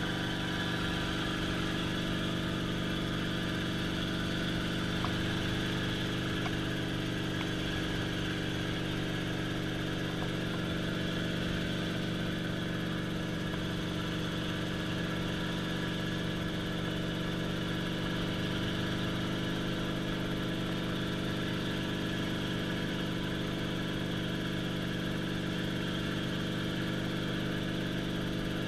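Small helicopter in cruising flight, heard from inside the cockpit: the steady hum of the engine, transmission and main rotor with many layered tones, holding an even level.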